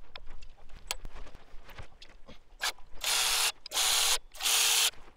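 Milwaukee cordless electric ratchet spinning out the high-pressure fuel rail bolts: three short motor runs of about half a second each in the second half, after light clicks of the socket being fitted onto the bolt heads.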